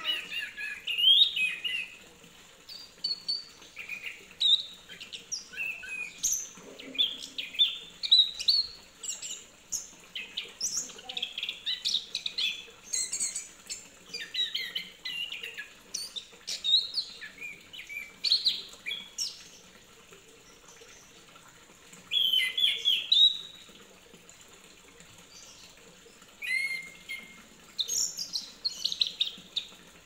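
Chestnut-capped thrush (anis kembang) singing: short bursts of quick, varied chirping notes, one after another, with a few longer pauses.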